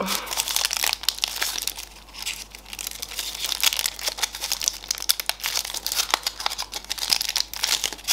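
Gold foil wrapper of a giant Ferrero Rocher chocolate ball crinkling and tearing as fingers pick it open: a dense run of sharp crackles with a short lull about two seconds in.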